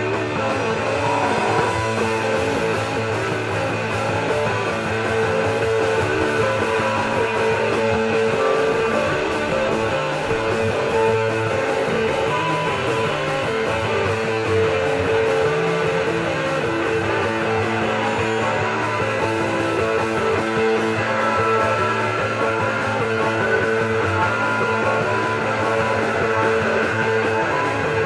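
Live rock band playing: electric guitars, bass and drums, with a harmonica played over them.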